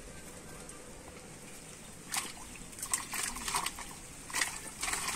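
Water splashing and sloshing in a plastic basin holding caught fish, in several short irregular splashes starting about two seconds in.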